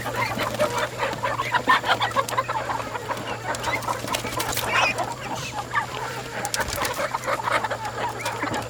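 Chickens clucking, many short calls overlapping throughout, over a steady low hum.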